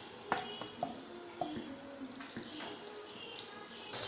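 Wooden spoon stirring saucy macaroni in a karahi: wet, squelching mixing with a few sharp knocks of the spoon against the pan.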